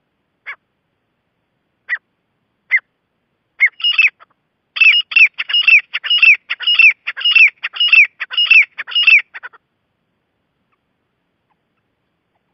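Gray francolin calling: a few spaced single notes build into a loud, fast run of repeated calls, about two a second, each falling in pitch, which stops about three-quarters of the way through.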